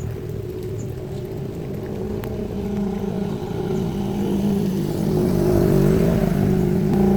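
An engine running steadily, growing louder over the last few seconds.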